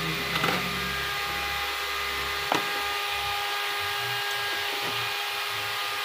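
Acid fizzing as it foams on sandy soil, over a steady mechanical whine. Two sharp clicks, one about half a second in and one about two and a half seconds in.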